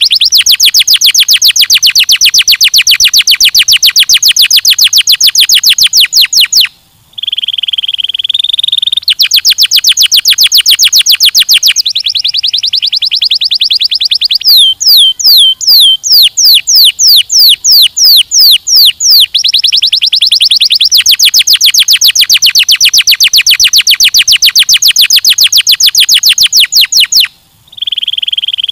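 Domestic canary singing a loud song made of fast trills, each a rapid run of repeated high notes. About seven seconds in, and again near the end, it switches to a short, lower, buzzing roll. In the middle comes a slower run of distinct sweeping notes.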